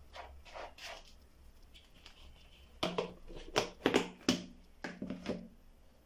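Soft rustling of hands in a plastic tub of powdered feed, then, about three seconds in, a run of about ten sharp taps and knocks over two seconds as plastic containers and a measuring cup are handled and set down on a stone counter.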